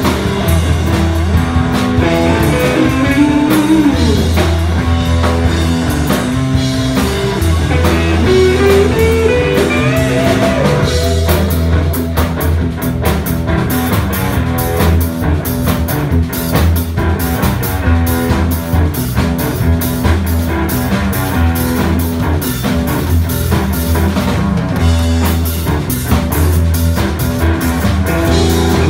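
Live blues-rock band playing loud and instrumental, with no singing: electric guitars over bass guitar and a drum kit. A lead guitar line has bent notes that slide down about three seconds in and climb again around ten seconds in.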